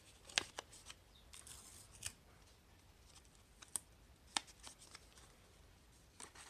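Paper craft handling: a few sharp clicks and a soft rustle of paper being worked by hand.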